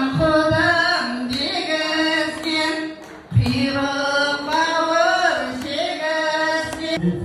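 A woman singing a melodic song into a microphone, with long held, sliding notes and a short pause about three seconds in.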